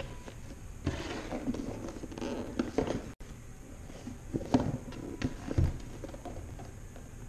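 Handling of a retail box of spark plug wires: rustling and crinkling packaging with small clicks for the first few seconds, then a few scattered taps and knocks as the box is turned over.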